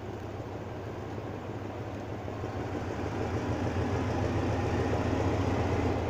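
Diesel locomotive's engine running with a steady low hum and rumble as it pulls slowly into the station, growing louder as it draws alongside.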